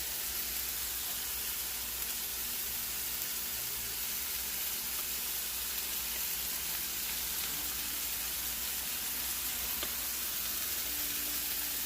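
Stir-fried vegetables sizzling steadily in a hot pan.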